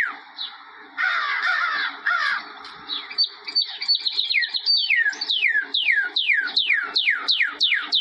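Birds calling: a fast series of falling whistled notes, about four a second, broken near the start by a second or so of harsh, rasping calls and a run of short high chirps, before the falling whistles resume.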